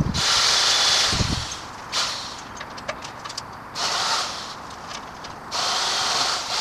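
MacAllister MPS750S-2 electric pole saw running in short bursts as it cuts oak branches. There are three bursts: a longer one at the start, a brief one about four seconds in, and another near the end.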